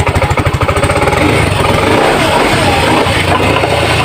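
Yamaha Mio i 125 scooter's single-cylinder fuel-injected engine running just after starting, with a rapid even firing beat for about the first second that then settles into a steadier idle. It runs after its sand-clogged throttle body, injector and intake manifold were cleaned, curing the hard starting.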